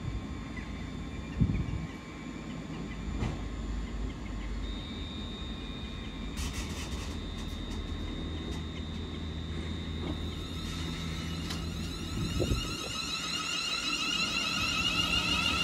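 ScotRail Class 380 electric multiple unit humming at the platform, with a short thump about a second and a half in and a steady high whine joining after a few seconds. In the last few seconds it pulls away, its traction motor whine climbing in pitch and growing louder.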